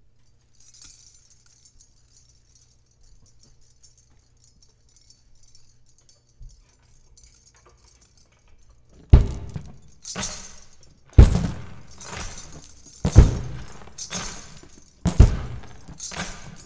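Instrumental intro of a song: faint jingling percussion at first, then about nine seconds in a steady drum beat comes in, with loud hits about once a second and the stronger beats alternating with lighter ones.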